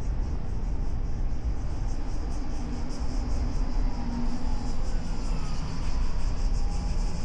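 Car driving on city streets, heard from its hood: a steady deep rumble of road, tyre and engine noise with a fine rapid ticking high above it. Faint rising and falling engine whines from passing traffic come through near the middle.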